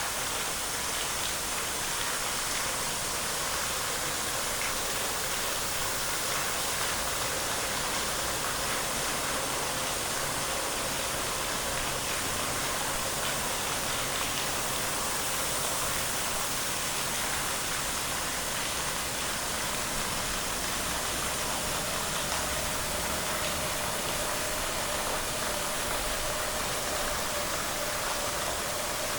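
Steady rushing of falling water, an even hiss that doesn't change.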